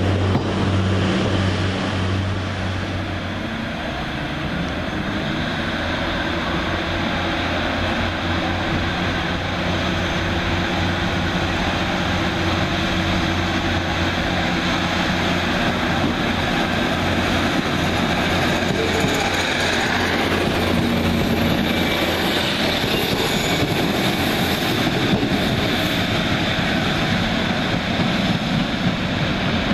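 Class 150 Sprinter diesel multiple unit running and pulling away from the platform: a steady diesel engine drone with a low hum, strongest in the first few seconds.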